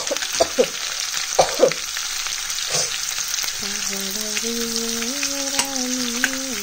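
Sliced onions frying in hot oil with fenugreek and cumin seeds in a steel kadai: a steady sizzle, with the steel spoon clinking and scraping against the pan several times in the first half as they are stirred. A low steady tone that shifts pitch in a few steps comes in over the second half.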